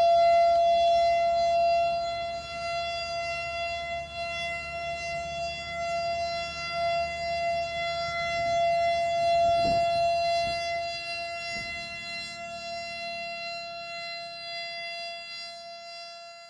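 Civil defense siren sounding one steady, unwavering tone that slowly fades away toward the end.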